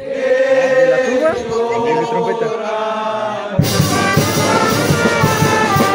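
Wind band of brass, saxophones and drums playing: sustained brass chords with some sliding notes, then about three and a half seconds in the full band with bass drum and cymbals comes in loud.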